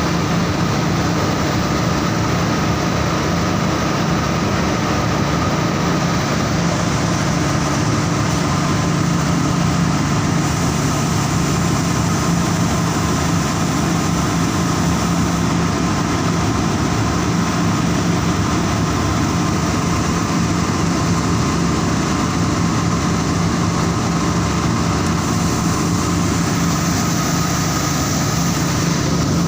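Saurer JSC 330 textile carding machine running steadily: an even mechanical whir with a constant low hum, unchanging in level.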